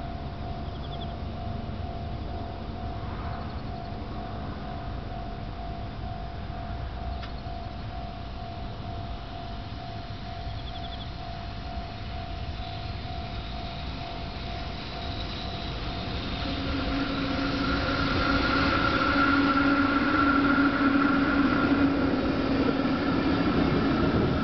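A level-crossing warning alarm sounds a steady ringing tone while a train approaches. About two-thirds of the way through, the train grows much louder as it runs past, with wheel rumble on the rails and a steady whine.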